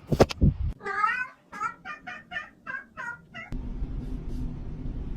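Domestic cat meowing: one longer meow about a second in, then a quick run of short meows, about three a second, and one more meow near the end. A short knock comes right at the start, and a steady low rumble comes in about halfway through.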